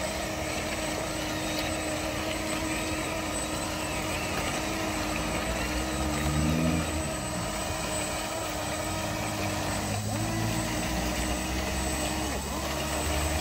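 Steady electric whine of radio-controlled construction models' motors and gearboxes, with a lower hum that swells about six seconds in and again in the second half; the whine's pitch dips sharply twice near the end as the models slow and pick up again.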